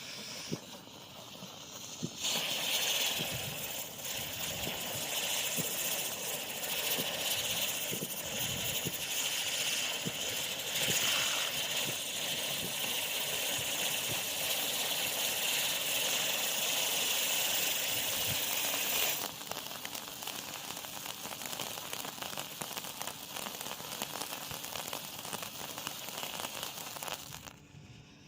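A small ground firework burning: a loud hiss full of crackles that starts about two seconds in, drops to a softer hiss about nineteen seconds in, and dies out near the end.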